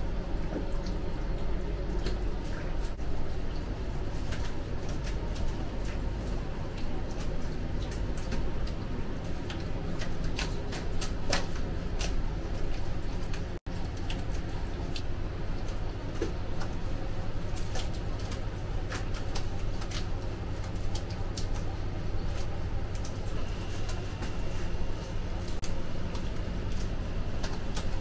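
Steady low kitchen hum with scattered sharp clicks and soft squishes of raw meat being pressed onto a döner skewer and trimmed with a long knife.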